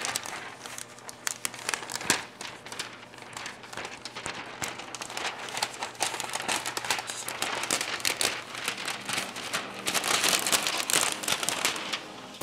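Sheet of paint protection film and its release liner crinkling and crackling as the liner is peeled back and the film is handled, busiest near the end.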